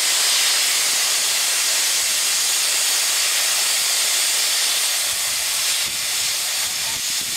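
LSWR M7 class tank locomotive 30053 blowing steam from its open cylinder drain cocks: a loud, steady hiss that starts suddenly and eases slightly near the end.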